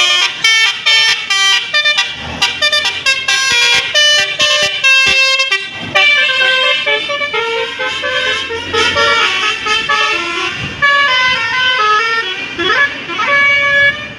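Bus's multi-trumpet 'telolet' musical air horn (Basuri type) playing a loud melody of stepped notes. The notes are short and choppy at first, then longer and held. A couple of rising glides come near the end before it cuts off.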